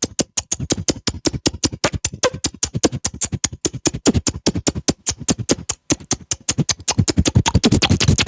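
Beatboxed bird-call imitation made with the mouth: a fast, rhythmic run of clicks and pops, several a second, getting louder near the end.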